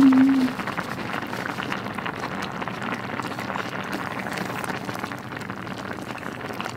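A pot of spicy, soupy tteokbokki bubbling steadily on its burner, a continuous fine crackle of simmering broth. A short hummed 'mm' is heard right at the start.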